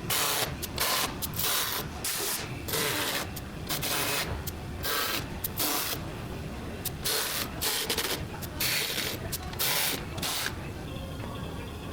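A series of short hissing or rubbing noises, about fifteen, irregularly spaced, that stop shortly before the end.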